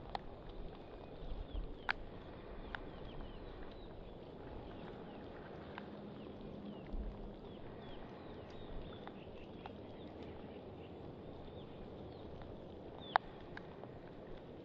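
Outdoor ambience over open water: a steady hiss of wind and water, with a few low wind buffets on the microphone. Scattered sharp ticks and knocks run through it, the loudest near the end, along with faint high chirps of small birds.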